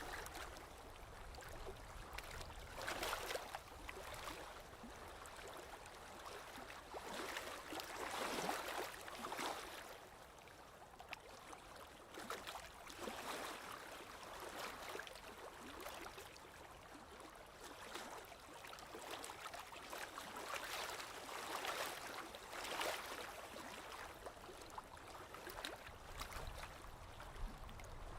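Small waves lapping and splashing gently on a lakeshore, a soft wash with a swell every few seconds.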